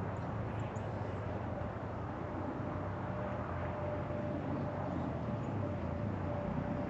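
A motor running steadily: a low, even drone with a faint high steady whine joining about two seconds in.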